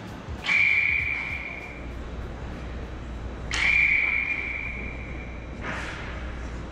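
Two sharp metallic strikes, each ringing on at one high pitch and fading over a second or two. A shorter, duller knock follows near the end.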